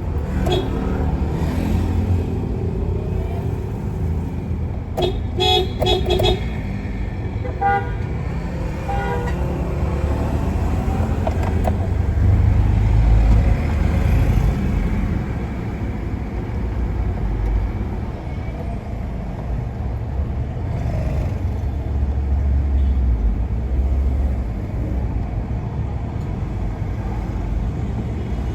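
Road traffic with a steady low rumble, and short vehicle-horn toots several times about five to six seconds in and again about eight to nine seconds in.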